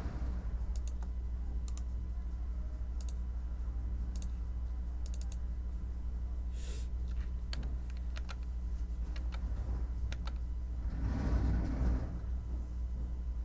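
Computer keyboard typing: irregular key clicks, sometimes in quick runs, over a steady low hum. A brief rushing swell comes near the end.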